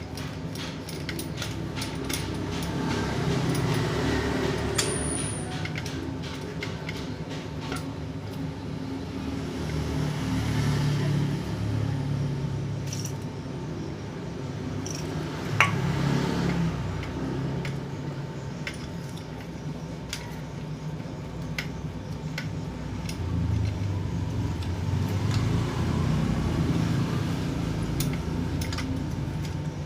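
Scattered metal clicks and clinks as the parts of a Cosmos electric fan's motor are handled while it is opened up to reach its stiff, rusted shaft, over a low rumble that rises and falls.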